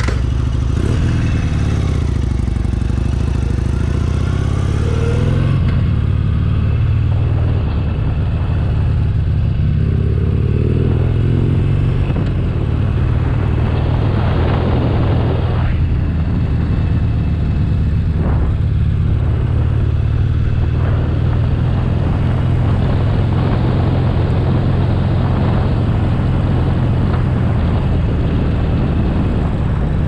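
Harley-Davidson Iron 883's air-cooled V-twin engine running as the motorcycle is ridden, its pitch rising and falling with the throttle in the first few seconds, then steadier.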